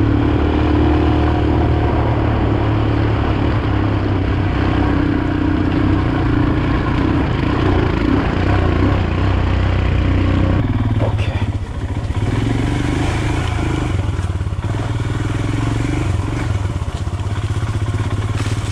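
Royal Enfield Himalayan's 411 cc single-cylinder engine running under way on a gravel track, with loose stones clattering under the tyres. About ten seconds in the engine note drops off briefly, then picks up again.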